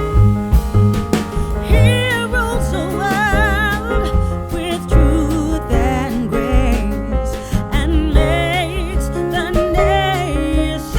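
Background music: a song with a singing voice, using vibrato, over piano or keyboard and bass.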